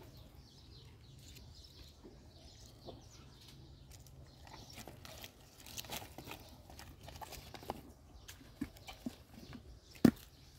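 A horse biting and chewing leaves off a hand-held fruit branch: irregular crunching and leaf rustling, with one sharp, loud crack near the end.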